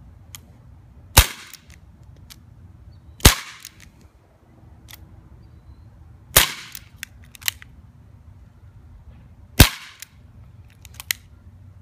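Dan Wesson 8-inch CO2 revolver BB gun firing four shots, each a sharp crack, about two to three seconds apart. Lighter clicks come between the shots.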